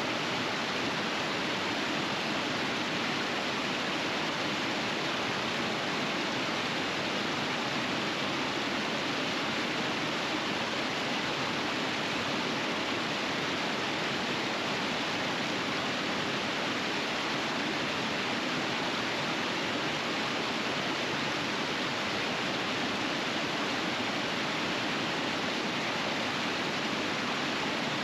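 River rapids flowing in a steady, unbroken rush of water.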